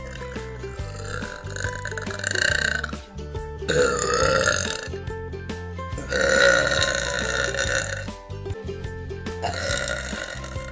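A person burping over background music: four long burps, a second or more each and two to three seconds apart, the third the loudest, the last still going at the end.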